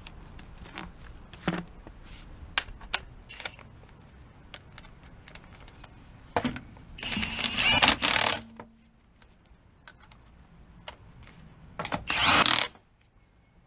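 Tools working on the car: scattered metallic clicks, and two louder bursts of rapid clicking, one around the middle and one near the end.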